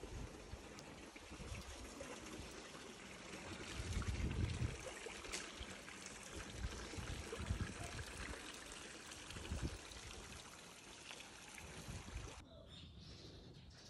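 Water running in a narrow stone-lined channel: a steady, even rush with a few low bumps, cut off abruptly about a second before the end by a quieter outdoor sound.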